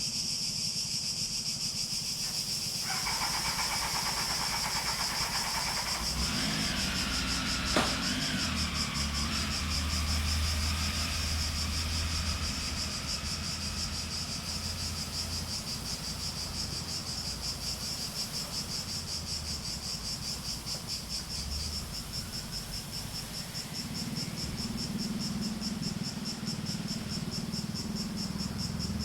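Cicadas buzzing in a steady, high, fast-pulsing chorus. A low rumble comes in about six seconds in and fades away past the twenty-second mark, with a single sharp click near eight seconds.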